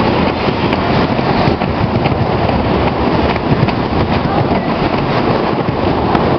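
Loud, steady crowd noise with no distinct words.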